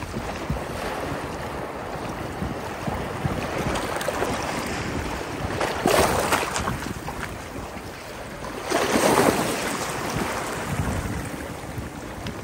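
Sea waves washing onto the beach, with wind buffeting the microphone; the surf swells louder twice, about halfway through and again about three-quarters of the way through.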